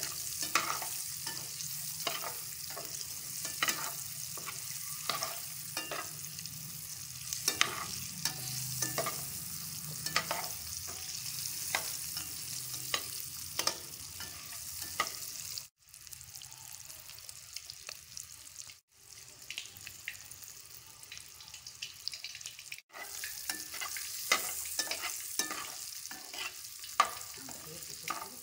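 Boiled eggs sizzling as they fry in hot oil in a nonstick pan, with a utensil scraping and clicking against the pan as they are turned. The sound cuts out briefly three times past the middle, and the clicks thin out between those dropouts.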